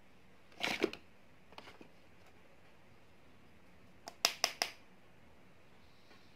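Sharp clicks and taps of makeup items being handled, a short cluster about half a second in and a quick run of four or five about four seconds in, followed near the end by a faint brush stroke on the skin.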